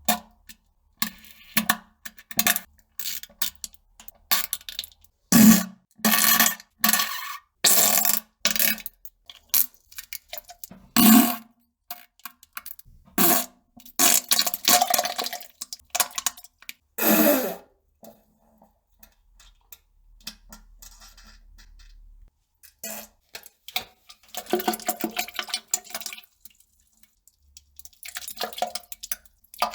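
A string of farts, some short pops and some drawn-out buzzing blasts about a second long, one sliding down in pitch. There is a quieter pause about two-thirds of the way through.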